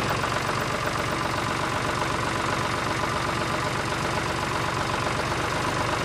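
Small electric motor of a toy tractor running steadily with a fast, even rattle.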